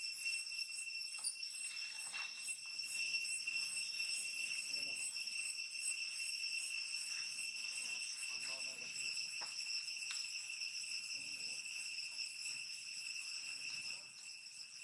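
Steady, high-pitched insect chorus: several even tones held without a break, with faint soft irregular sounds beneath.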